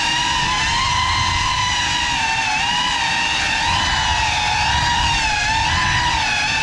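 Cinelog 35 cinewhoop's motors and ducted props whining, heard from the onboard GoPro; the pitch wavers up and down with the throttle over a low rumble of prop wash.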